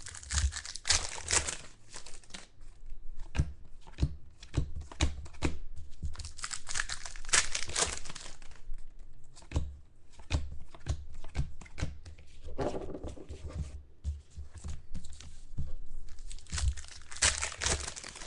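Trading-card pack wrappers being torn open and crinkled, in three longer rips near the start, midway and near the end, with short clicks and ticks of cards being handled between them.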